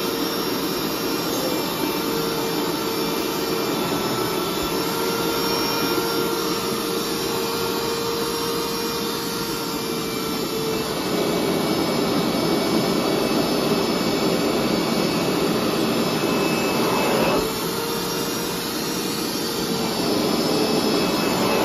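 Hoover SteamVac SpinScrub carpet cleaner's suction motor running steadily with the hose in use, a rushing hum with a held whine. About halfway through, the whine drops out and the sound gets a little louder. The whine comes back a few seconds later, and the sound rises again near the end.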